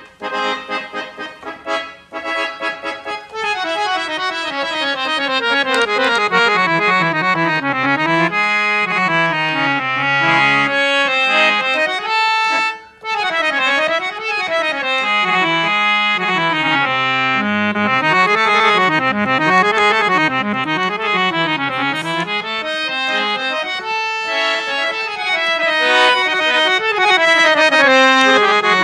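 Student-level JAMUNA standing harmonium with two sets of male bass reeds being played with the bellows pumped. It opens with short detached notes, then runs down a scale and plays quick melodic runs up and down. The sound breaks off briefly about thirteen seconds in.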